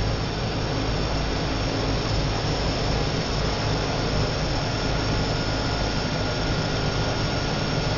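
Pratt & Whitney PT6 turboprop engines running steadily on a ground run, heard from inside the cockpit: a dense, even rumble and hiss with a faint steady high whine.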